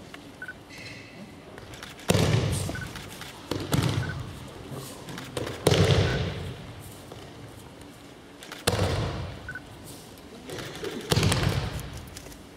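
Aikido breakfalls: partners thrown onto the tatami mats land with heavy thuds and slaps, four big falls about three seconds apart with smaller knocks between, each echoing in a large hall.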